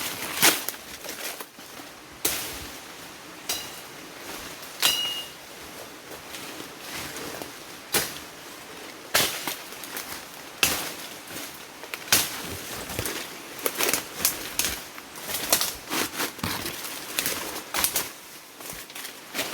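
Sharp, irregular clicks and knocks, some close together and some a second or more apart, with a bird chirping briefly twice about four and five seconds in.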